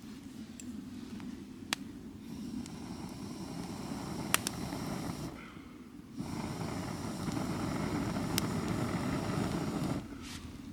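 Campfire with a steady rushing of air and a few sharp crackling pops. The rush breaks off for about a second a little past halfway, then resumes.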